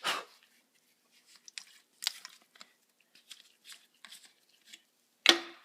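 Scattered small clicks and light rustles of paint-spraying gear being handled while a paint strainer and spray gun are readied, with a sharp click at the start and a louder sharp clack near the end.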